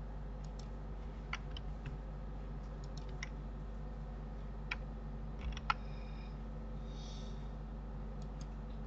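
Computer keyboard and mouse clicks, a dozen or so scattered irregularly, over a steady low electrical hum.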